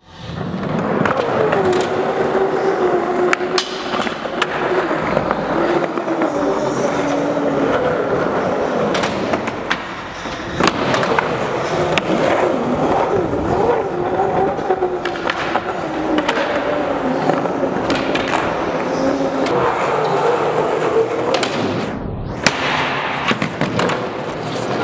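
Skateboard wheels rolling on a smooth concrete floor, the rumble wavering up and down in pitch as the speed changes, with sharp clacks and pops of the board from tricks and landings scattered throughout.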